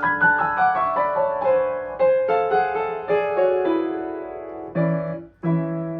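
Grand piano being played: a quick run of notes stepping downward over held tones, then a chord that breaks off about five seconds in before another chord sounds. The piano is being played to test its touch after the action has been regulated (jack position, let-off, drop and repetition springs).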